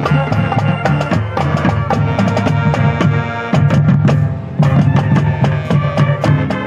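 High school marching band playing loudly: brass and winds over a busy drumline, with frequent sharp drum hits.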